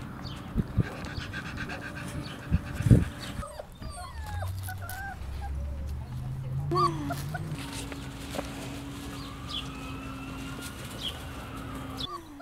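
Rottweiler puppies whimpering and yipping in short rising and falling whines, with a few sharp knocks, the loudest about three seconds in.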